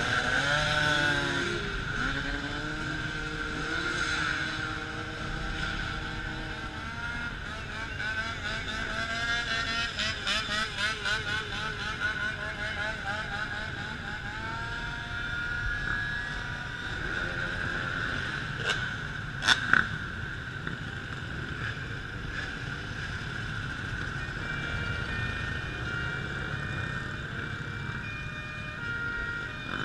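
A stream of dirt bikes and scooters riding past close by: many small motorcycle engines buzzing and revving over one another, their pitches rising and falling. Two sharp pops stand out about two-thirds of the way through.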